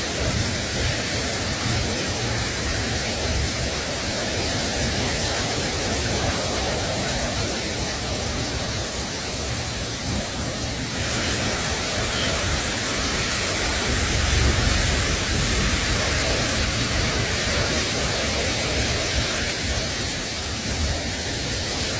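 Steady rushing noise without distinct events, a little brighter in its upper range from about halfway on.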